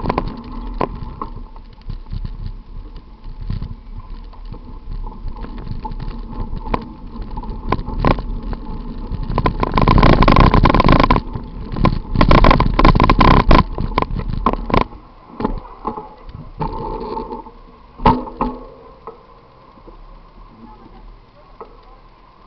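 Bicycle riding through city traffic, picked up by a bike-mounted camera: wind rushing on the microphone and sharp rattles and knocks over the road surface, loudest about ten to fourteen seconds in. After about fifteen seconds it goes much quieter as the bike stops at a crossing.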